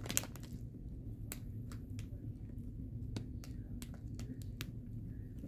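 Scattered short, sharp crunches and crackles of crisp potato sticks being chewed and their foil snack bag being handled, over a steady low hum.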